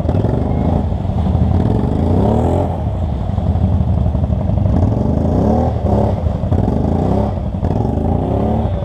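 ATV engine revving in repeated rising surges while working to get out of deep mud, over a steady low engine rumble.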